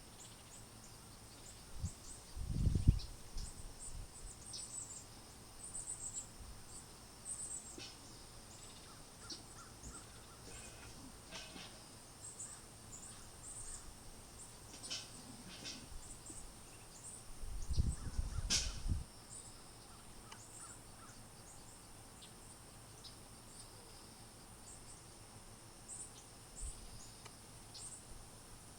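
Garden birds calling, with many short high chirps scattered throughout and a few lower calls in the middle. Two brief low rumbles break in, one about three seconds in and one about two thirds of the way through.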